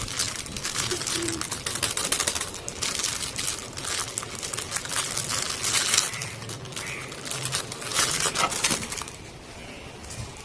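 Packaging crinkling and rustling with irregular crackles as a pop-it fidget toy is unwrapped, quieter near the end.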